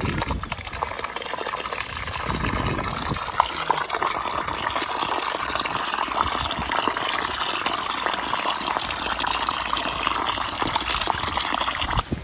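Steady rush of running water, unbroken and even, that cuts off abruptly near the end.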